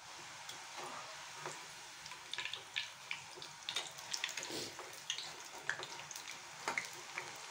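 Hot oil sizzling around freshly added strips of ribbon pakoda dough frying in an aluminium kadai: a steady hiss with scattered sharper crackles and clicks. The busy sizzle shows the dough is still raw; it dies down once the strips are cooked.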